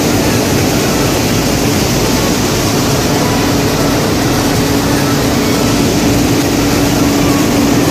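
Cargo truck engine running, a steady drone under a held hum that grows a little stronger near the end.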